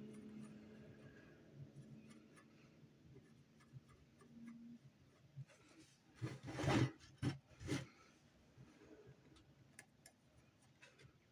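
Scratching of a marking tool drawing design lines on a metal buckle blank, with three louder strokes near the middle.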